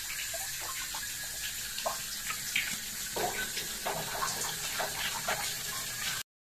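Water running from a hose into a basin in a small tiled bathroom: a steady hiss with small scattered splashes and drips.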